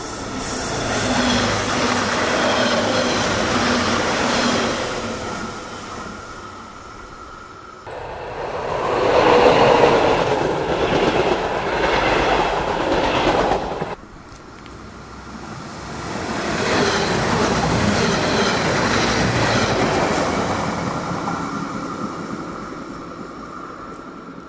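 N-gauge model trains running past on the layout's track, including a measurement train of yellow test coaches. The running noise swells and fades three times as trains pass, breaking off abruptly about 8 and 14 seconds in.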